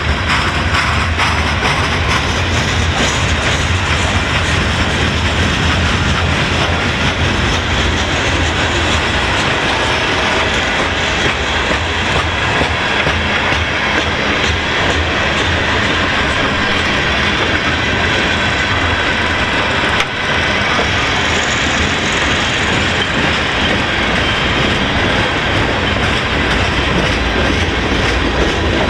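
Freight train's boxcars and tank cars rolling past close by: a steady noise of steel wheels running on the rails.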